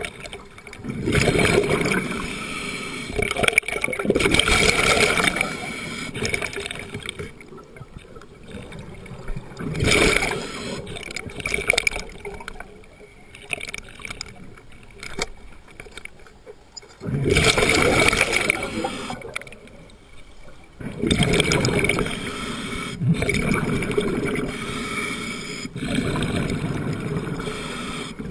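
Scuba breathing through a regulator underwater: exhaled bubbles rushing out in loud spells of a few seconds each, several times, with quieter inhalations between.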